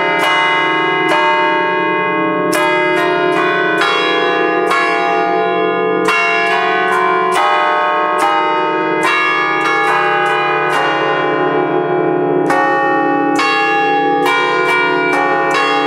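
Five bronze church bells, cast by the Ottolina brothers in 1932 and tuned to a scale on D-flat, played from a baton keyboard that pulls their clappers, ringing a quick festive tune. The notes follow one another several times a second, each ringing on under the next.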